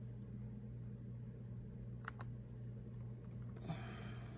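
Faint typing on a laptop keyboard: a couple of key clicks about two seconds in and a short run of quick keystrokes near the end, over a steady low hum.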